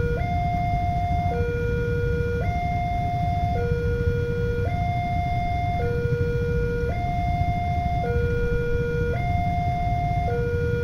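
Railway level-crossing warning alarm sounding, an electronic two-tone signal alternating between a higher and a lower note about once a second each, warning that a train is approaching. It runs over steady low rumbling noise.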